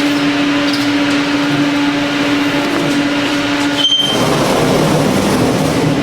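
Machinery on a car air-conditioner filter production line running steadily with a constant hum. About four seconds in it switches abruptly to a denser, busier mechanical noise.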